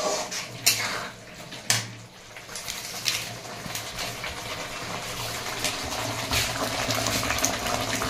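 A steel ladle knocks twice against a steel kadhai. Then a tomato-and-spice masala bubbles and sizzles steadily as it fries on a low gas flame.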